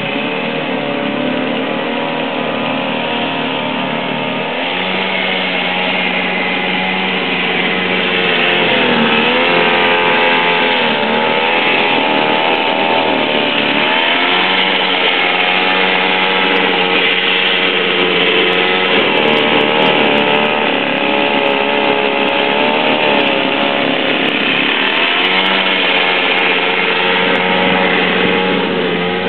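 A small engine running steadily, its pitch rising and falling every few seconds as if under changing load.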